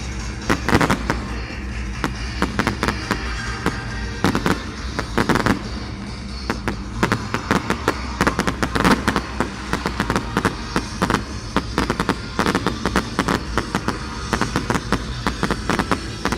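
Fireworks going off in quick, overlapping bangs and crackling, with louder clusters of bursts about a second in, around four to five seconds, and near nine seconds.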